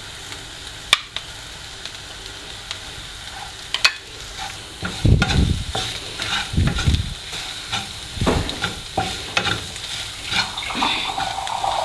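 Ground onion and coconut masala sizzling in oil in a non-stick pan as a wooden spatula stirs it in with freshly added coriander powder. The first few seconds are a quiet sizzle with a couple of sharp clicks, then the stirring gets busier from about five seconds in, with the spatula scraping and knocking low against the pan.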